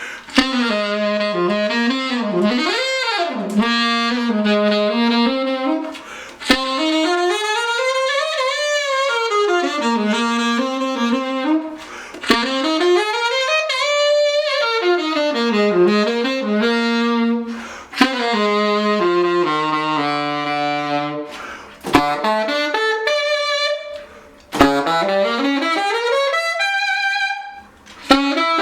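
Saxophone fitted with a hand-crafted metal ring ligature, played solo in quick runs that sweep up and down its range. The phrases are broken by short pauses for breath.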